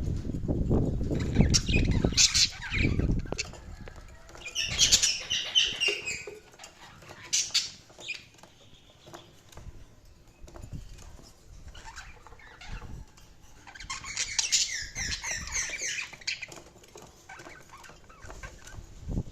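Budgerigars chirping and warbling in short, quick bursts, the busiest about five seconds in and again near the end. A low rustling and thumping runs under the first few seconds.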